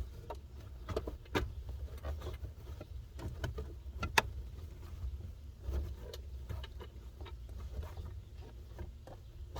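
Plastic center console of a Jeep Cherokee XJ being slid and worked into place: scattered light knocks, clicks and scrapes over a low steady rumble, with one sharper knock about four seconds in.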